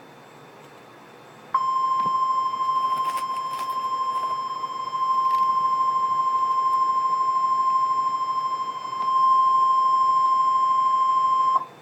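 NOAA Weather Radio warning alarm tone: a single steady 1050 Hz tone held for about ten seconds over faint radio hiss, starting about a second and a half in and cutting off sharply just before the end. It signals that an urgent weather alert, here a severe thunderstorm watch, is about to be read.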